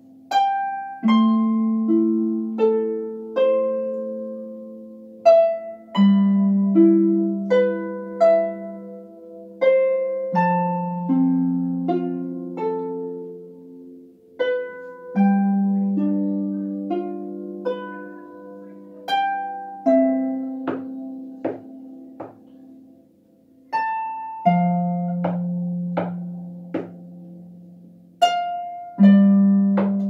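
Solo harp playing: single plucked melody notes in the middle and upper strings over low bass notes that ring on and fade. The music falls into short phrases, with brief pauses about fourteen and twenty-four seconds in.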